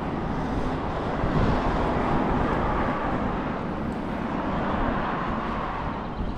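A vehicle passing, its rushing engine and road noise swelling over the first couple of seconds and then slowly fading.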